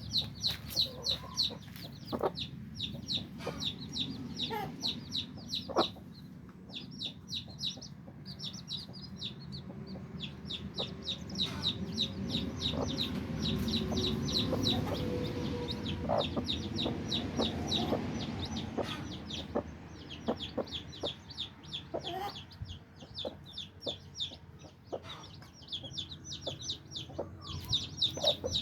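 A brood of week-old chicks peeping: a steady stream of many short, high peeps, overlapping and thinning out now and then.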